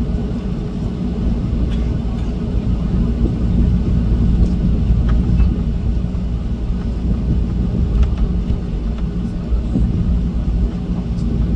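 Jet airliner cabin noise while taxiing, heard from a window seat: a steady low rumble of the engines and rolling gear with a constant hum, and a few faint ticks.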